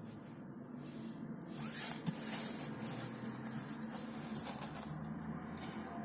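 Low, steady car-cabin hum, with a brief crackling rustle about two seconds in as a crusty bread loaf is handled.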